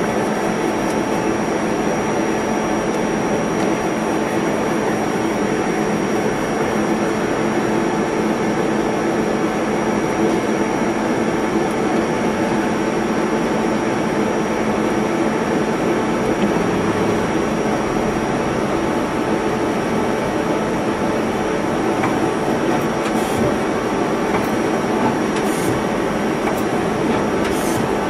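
Mazak Multiplex 4200 CNC lathe running: a steady machine drone with several steady hum tones and a thin high whine, with a few faint clicks near the end.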